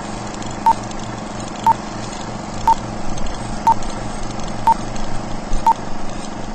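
Film-leader countdown beeps: a short, high beep once a second, six in all, over a steady whirring hum.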